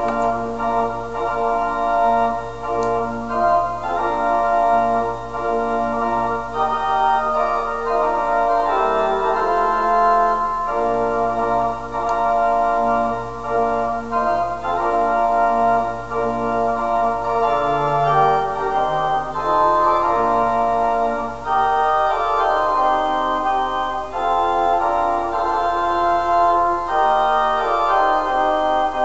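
Organ playing a slow wedding processional in held chords over a low bass line that change every second or two.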